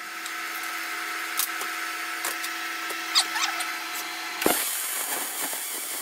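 MIG welder arc crackling and hissing while welding the clutch pedal bracket, over a steady hum. It becomes louder and hissier about four and a half seconds in.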